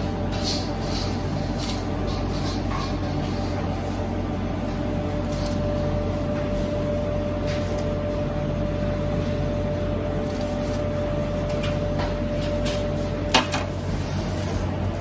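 Steady hum of bakery equipment, with light clinks of gloved hands handling buns on a wire cooling rack and one sharp clack near the end.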